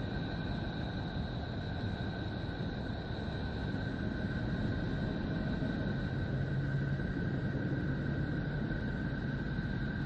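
Space-sound sonification presented as the sound of Neptune, electromagnetic signals converted into audio: a steady, low, noisy drone with two thin high tones held throughout. A low hum joins about six seconds in.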